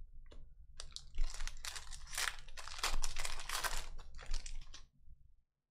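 The foil wrapper of a 2021-22 Panini Donruss Basketball hobby pack being torn open and crinkled by hand. The crackling starts about a second in and stops shortly before the end.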